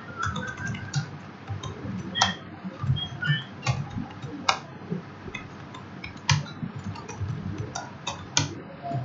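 Typing on a computer keyboard: irregular key clicks, with a handful of louder strokes.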